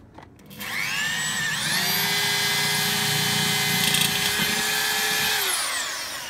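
Corded DeWalt electric drill boring a small pilot hole through the thin steel wall of a Weber kettle bowl. The motor starts about half a second in, whines up in pitch, runs steadily under load, then winds down near the end.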